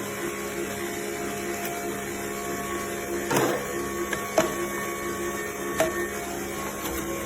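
AUMATE 150 W cold-press slow juicer running steadily, its motor giving a pulsing hum, with a few sharp clicks, one of them about three seconds in and the loudest about four seconds in.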